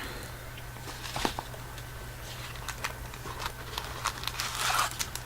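Light clicks, taps and brief crinkles from candy wrappers being handled, over a steady low hum.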